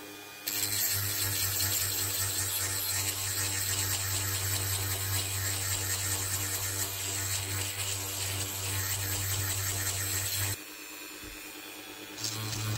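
Handheld rotary tool with a small white abrasive bit grinding ejection pin marks off a plastic model-kit part: a steady motor whine with a gritty grinding hiss. It stops about ten and a half seconds in and starts again near the end.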